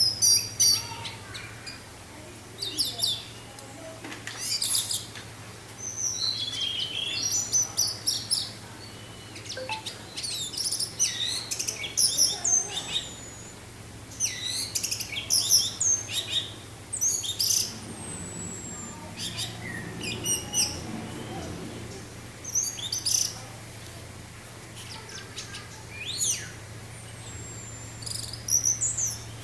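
Orange-headed thrush (anis merah) singing in the fast, varied 'teler' style: rapid high chirps, trills and whistles in repeated bursts every second or two, over a low steady hum.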